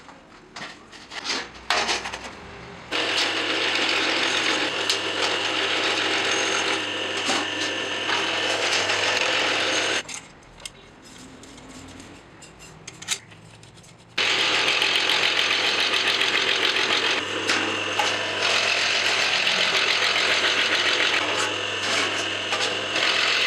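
A factory metalworking machine running with a loud, rapid mechanical clatter over a steady low hum. It starts about three seconds in, stops for about four seconds around the middle, and then runs again.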